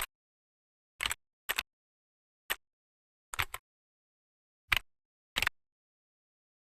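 A series of about six short, sharp clicks and knocks at uneven intervals, with dead silence between them.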